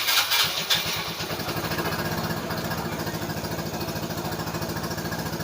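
Yamaha Mio Sporty scooter's small single-cylinder engine catching, uneven for about the first second, then settling into a steady idle. The scooter is hard-starting, which the owner puts down to an air leak at the carburettor or its hoses.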